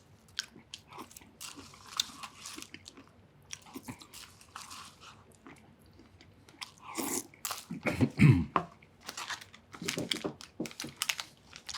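Close-miked chewing and crunching of a mouthful of halo-halo, a shaved-ice dessert with mixed toppings, with many short wet mouth clicks. A brief hum of the eater's voice comes about eight seconds in.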